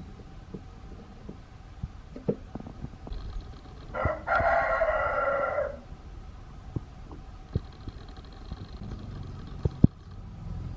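Mechanical alarm clock's bell ringing in one burst of under two seconds about four seconds in, starting and stopping abruptly. Scattered small clicks and knocks come from the clock being handled.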